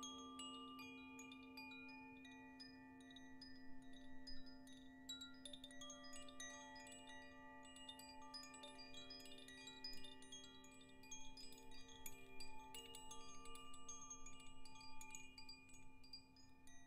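Hand-held cylindrical wind chime swung gently by its cord, giving a continuous shimmer of overlapping tinkling notes that get busier after a few seconds and stop near the end. A steady low tone, from a crystal singing bowl, hums underneath.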